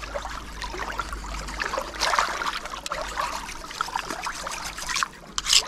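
Shallow water trickling and splashing around hands working a knife blade on a wet stone at the water's edge, with irregular scraping strokes of the knife sharpening.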